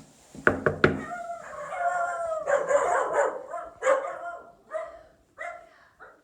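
A dog howling and whining in long wavering cries, then giving a run of four short barks. A few sharp knocks come about half a second in.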